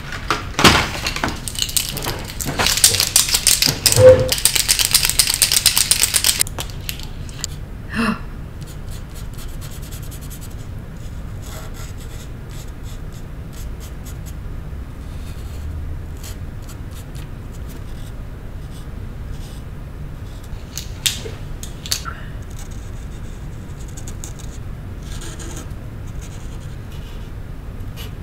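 Art supplies being handled: a burst of rapid rattling and clicking for about the first six seconds, then low room tone with a few soft taps.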